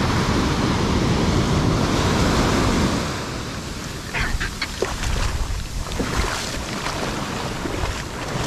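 Ocean surf washing up a sand beach, the foam of spent waves rushing over the wet sand, louder for the first three seconds, with wind on the microphone.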